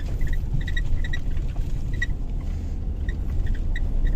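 A vehicle's engine running with a steady low rumble while under way, with short high chirps or squeaks scattered through it.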